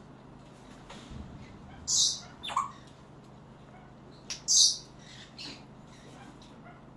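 Parrots squawking: two short, harsh, loud screeches about two and a half seconds apart. A quick falling call comes right after the first, and a few fainter calls fall between them.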